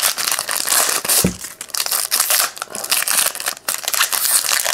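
The foil wrapper of a baseball card pack is torn open and crumpled by hand, giving a dense, continuous rustle of many small tearing and crinkling strokes.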